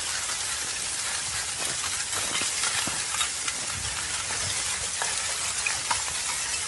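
Active lava flow giving a steady hiss with scattered small crackles, as its crust cools and breaks.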